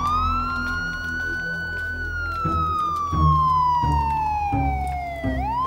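A siren wailing: its pitch rises, holds for a moment, falls slowly over about three seconds, then starts rising again near the end. Background music with low bass notes plays underneath.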